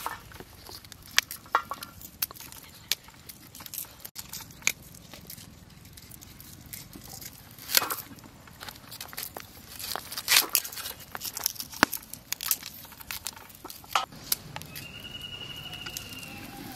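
Cauliflower being cut on a boti blade: irregular crisp snaps and tearing as florets are split off the head, with softer crackling of leaves between. A short high trilling call near the end.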